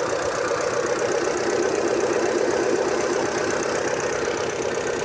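Hyundai Santa Fe SM's 2.4-litre inline-four petrol engine idling steadily, with a fast, even ticking on top.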